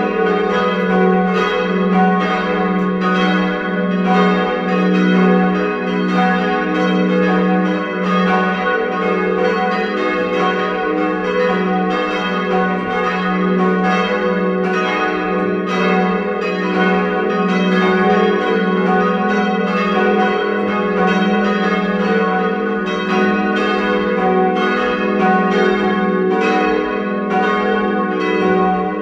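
Full peal of four church bells cast by Rudolf Perner in 1981, tuned F♯–G♯–B–D♯, swinging together in a continuous, overlapping ringing.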